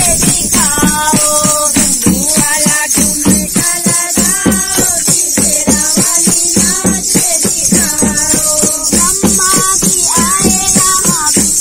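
A group of women singing a devotional kirtan in unison, with hand claps and a shaken tambourine's jingles keeping a steady beat.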